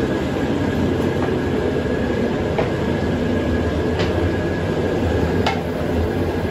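Steady, loud rumble of sugarcane-processing machinery, with a sharp click repeating about every one and a half seconds.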